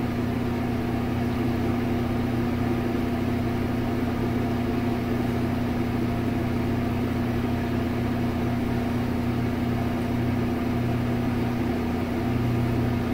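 A steady low mechanical hum, unchanging throughout, with a constant pitched drone.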